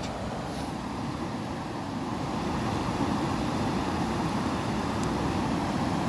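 Steady rushing of a shallow river flowing over stones, a little louder from about two seconds in.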